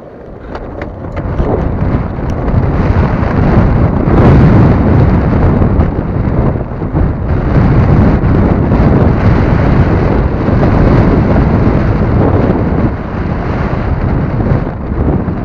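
Wind blasting the camera's microphone as a sail-powered longboard moves at speed, building over the first two seconds and then staying loud and steady.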